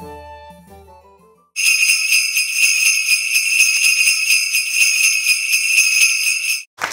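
Small bells jingling steadily for about five seconds, after a short stretch of soft keyboard music that fades out.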